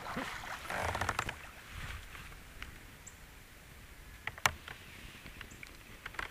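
Faint rustling and light knocks of gear being handled in a kayak as a small largemouth bass is landed, with a few sharp clicks, the loudest about four and a half seconds in.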